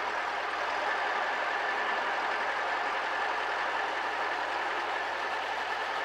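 Robinson helicopter's piston engine running at low power with the main rotor turning slowly during start-up, a steady drone.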